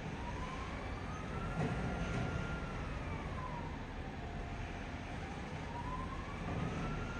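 A siren wailing: one tone rises slowly in pitch, holds, falls, holds low, then rises again, over a steady low engine rumble. There is a brief knock about one and a half seconds in.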